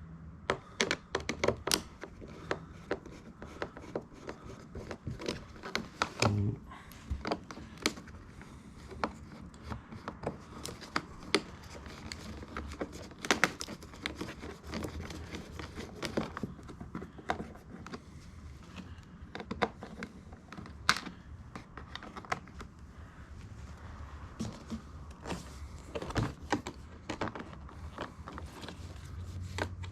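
Hand work on a car's door interior: irregular small clicks, knocks and scrapes of plastic trim parts and hand tools as the window switch unit's fixings are undone.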